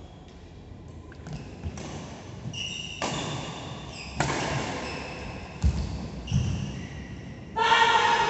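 Badminton doubles rally on an indoor court: sharp racket strikes on the shuttlecock, sneakers squeaking on the court mat and thudding footsteps. A loud, drawn-out voice starts near the end.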